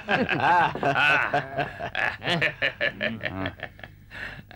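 A man laughing: a run of short chuckles that gets fainter and dies away about three and a half seconds in.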